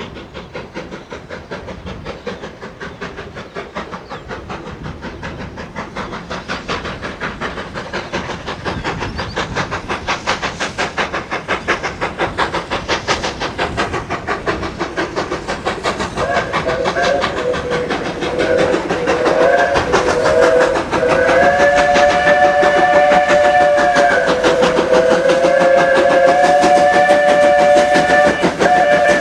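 Ex-SAR Class 19D steam locomotive approaching, its rapid even exhaust beats growing steadily louder. About halfway through its steam whistle sounds a chord of several tones, first in a few short blasts and then in two long held blasts.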